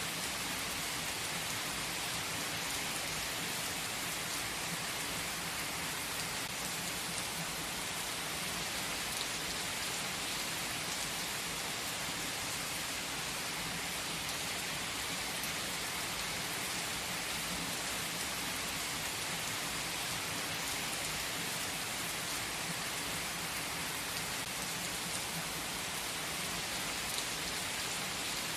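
A steady, even rain-like hiss with no breaks or changes in level: a continuous relaxation noise ambience.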